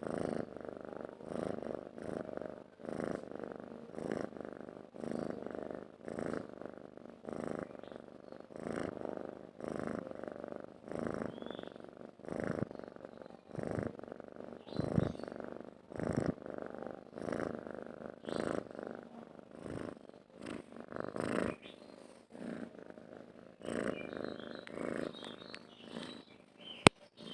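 Domestic cat purring continuously in regular pulses that swell and fade with its breathing, about three pulses every two seconds. A single sharp click sounds near the end.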